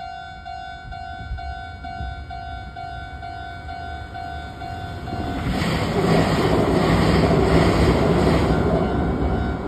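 A Japanese level-crossing bell rings steadily, about two strokes a second. About five and a half seconds in, an electric commuter train passes close by, its wheels and running gear loud for about four seconds and drowning out the bell.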